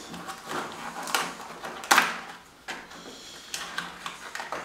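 Folded paper polyhedron models being handled and pulled apart: irregular paper rustling and sharp clicks, the loudest about two seconds in.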